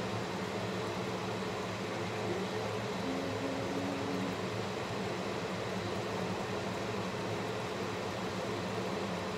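Kitchen range hood exhaust fan running, a steady hum with an even hiss.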